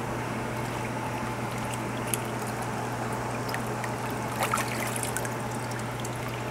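Water moving and trickling in a hydrographics dip tank as a part is pushed down through the activated film, with a few small splashes about two and four and a half seconds in, over a steady low hum.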